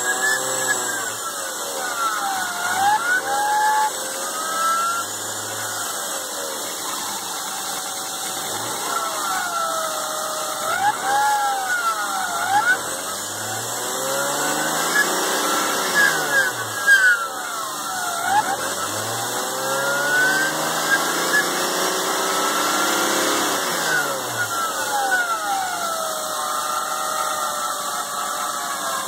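BMW E36 M3 straight-six engine revved up and down several times, with a whine that rises and falls with engine speed. The owner is pretty sure the whine came from a rough main drive-belt tensioner pulley.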